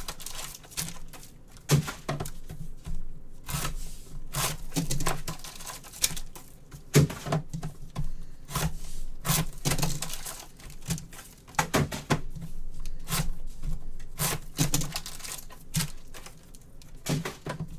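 Irregular sharp clicks and taps, about one or two a second, over a faint background hiss.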